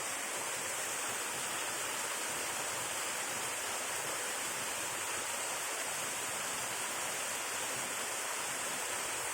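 Waterfall pouring, a steady even rush of falling water.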